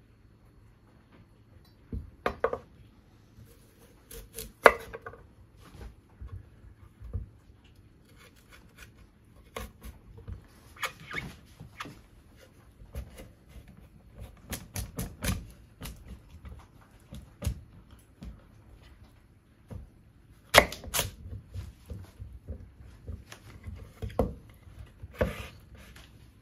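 Kitchen knife cutting a raw carrot lengthwise on a wooden cutting board: irregular cuts and sharp knocks of the blade against the board, the loudest about two, four and a half and twenty seconds in.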